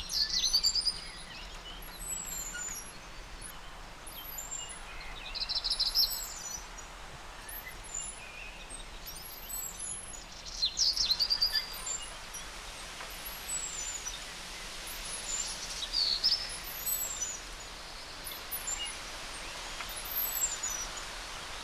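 Several wild birds calling and singing: short high chirps throughout, with a louder song phrase about every five seconds, over a steady background hiss.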